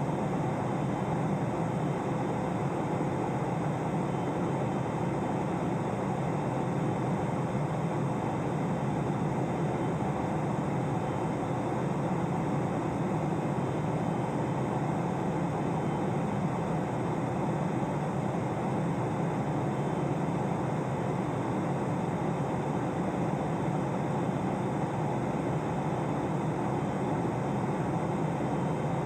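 Steady airliner cabin noise inside a Boeing 777-200 on the ground after landing: an even rushing hiss from the engines and air system, with a faint steady hum.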